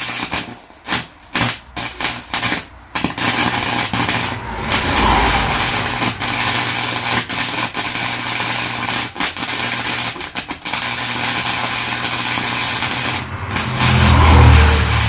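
Electric arc welding a steel part onto a differential spider gear: a few short crackling bursts at first, then a steady crackling weld for about ten seconds that stops briefly near the end. A louder low hum comes in near the end.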